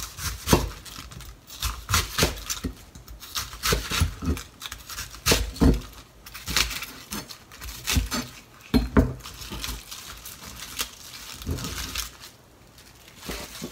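Chef's knife slicing through crisp napa cabbage leaves on a plastic cutting board: irregular crunches and taps of the blade on the board, dying down near the end.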